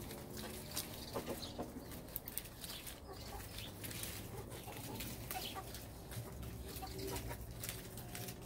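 Domestic hens clucking softly while they peck at Swiss chard, with many short sharp clicks and rustles from the pecking over a steady low rumble.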